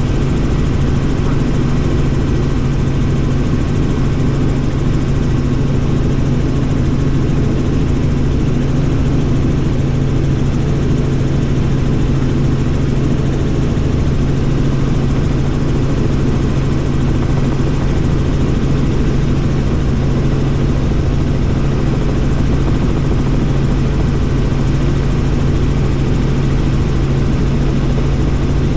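Bell helicopter in flight, heard from inside the cabin: a loud, steady drone of engine and rotors with a strong low hum that does not change.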